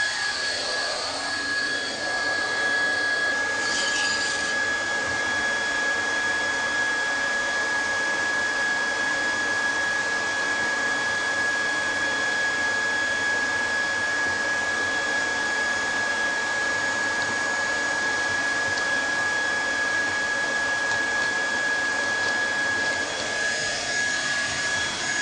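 Hot-air plastic welding gun running steadily, its blower fan making a constant rushing noise with a thin high whine.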